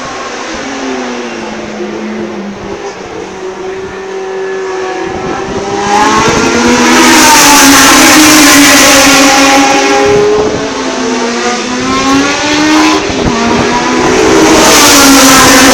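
Historic Formula One racing car engines running at high revs as the cars race past on the straight, the engine pitch climbing and dropping as they change gear and go by. A quieter stretch at first, then a loud pass-by about six seconds in and another near the end.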